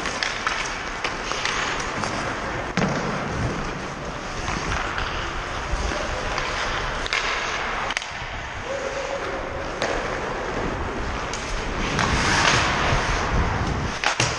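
Ice hockey skate blades scraping and carving on rink ice close by, with several sharp clacks of sticks and puck; a louder, longer scrape swells near the end.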